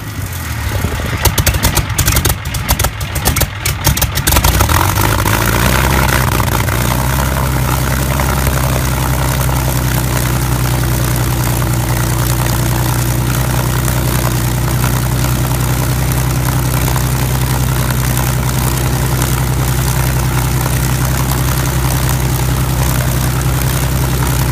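Packard V-1650 Merlin liquid-cooled V12 aircraft engine just after starting, firing unevenly with sharp crackles for the first few seconds, then settling into a steady idle.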